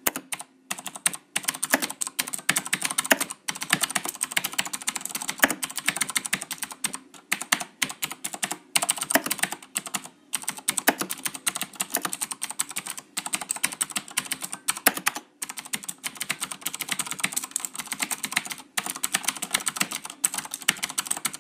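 Fast typing on a Razer BlackWidow Ultimate mechanical keyboard with clicky Cherry MX Blue switches: a quick, steady stream of sharp key clicks, broken by a few brief pauses.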